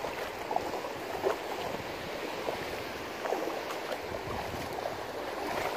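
Feet wading and sloshing through ankle-deep water over a rocky reef flat, against a steady wash of surf and wind.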